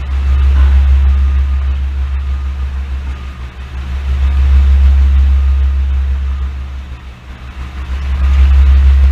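Road vehicles driving over the level crossing: a low rumble that swells and fades three times as they pass.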